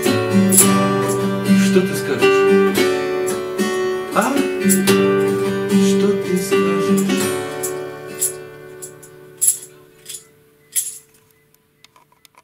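Two acoustic guitars strumming the closing bars of a song, then a final chord that rings and fades away. A few sharp hand-percussion shakes sound over the fading chord.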